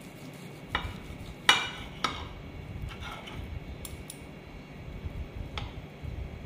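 Steel knife and fork clinking and scraping on a ceramic plate while cutting a pork chop: several sharp clinks. The loudest comes about one and a half seconds in and rings briefly.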